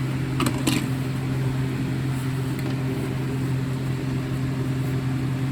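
A few sharp plastic clicks, about half a second in, as a First Alert 4120B smoke alarm is twisted onto an SA300 mounting bracket, over a steady low hum.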